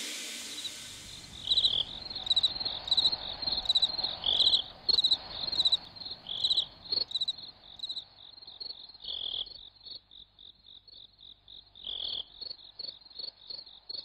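Night ambience: crickets chirping in a steady pulsing trill, with frog croaks scattered through it.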